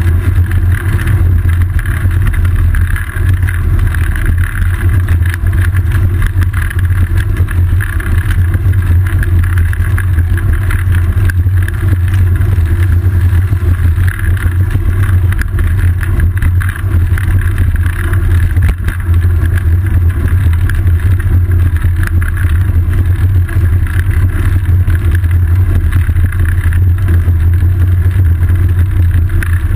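Steady, loud, deep rumble of wind and road vibration picked up through a seat-post-mounted GoPro's waterproof housing as a bicycle rides over a wet paved bike path, with a constant patter of small knocks and rattles.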